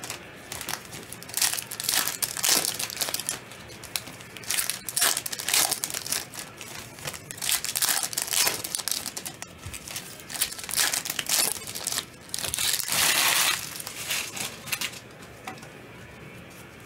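Plastic trading-card pack wrappers crinkling and being torn as packs are opened and cards handled, in irregular short bursts. There is one longer rustle about 13 seconds in, and it quietens over the last couple of seconds.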